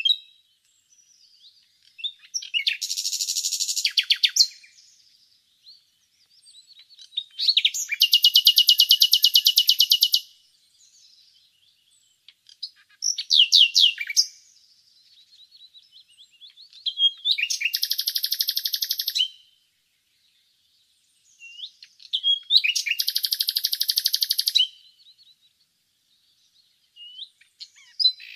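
Common nightingale singing: loud phrases of fast, rapidly repeated notes and trills, each lasting one to three seconds, with short pauses between them, about six phrases in all.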